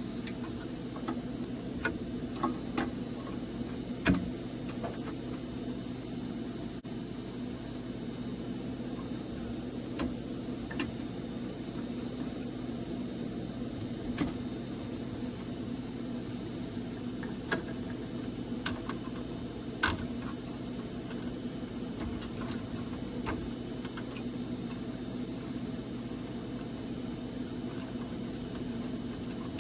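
A steady low machine hum, with scattered sharp clicks and knocks of parts being handled; the loudest knocks come about four seconds in and again about twenty seconds in.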